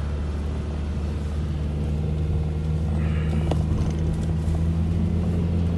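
Car driving over snow, heard from inside the cabin: a steady low engine and road drone that grows slightly louder, with a faint tick about three and a half seconds in.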